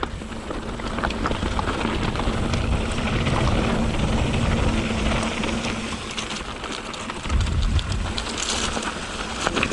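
Mountain bike descending fast over a rocky trail: wind buffeting the helmet or handlebar microphone, with the tyres and frame rattling and clattering over rocks.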